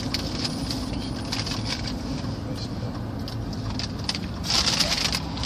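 Steady low rumble of a car cabin on the move, with rustling and clicks from the phone being handled close to clothing, loudest about four and a half seconds in.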